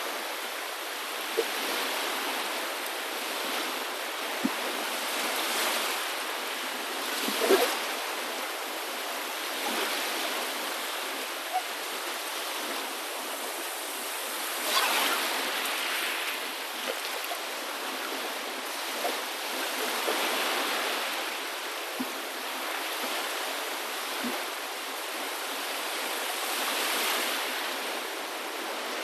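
Waves washing onto a shore, swelling and falling every few seconds, with a few short light clicks among them.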